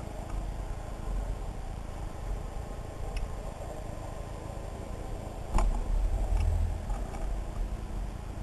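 Underwater sound picked up by a camera as it moves through the water: a steady low rumble with a few faint clicks. About five and a half seconds in there is a sharp knock, followed by a louder rumble for a second or so.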